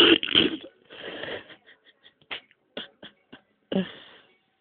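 A cat's stifled sneezes that never quite come: two loud bursts of breath through the nose in the first second and a half, a run of short sharp sniffs, then another burst near the end.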